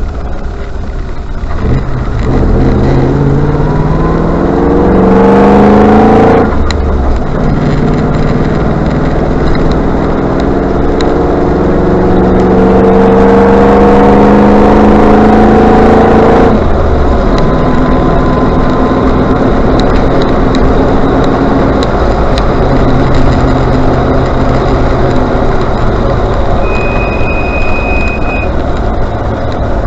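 Range Rover Classic on the move: the engine pulls up through the revs twice, with a change in between, then runs steadily. Near the end a brief high-pitched brake squeal sounds for about a second and a half, which the owner puts down to Britpart parts.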